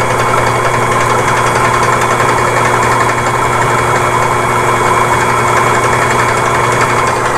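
SpeedWinder AL-130 line winder's electric motor running at a steady speed, spinning a spinning-reel spool as line winds onto it: a loud, even machine hum that does not change.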